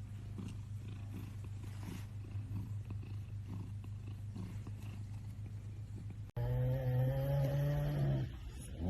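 An animal's low, steady rumbling for about six seconds. Then, after an abrupt cut, a louder drawn-out low pitched moan that falls away near the end.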